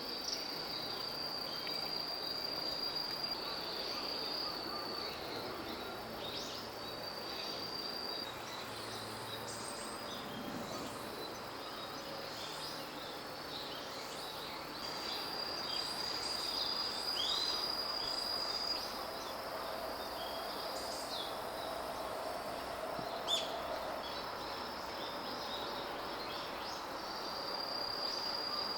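Steady high-pitched insect trill, like a cricket, running in long stretches that break off now and then. Many short, high bird chirps are scattered over it, against faint outdoor background noise.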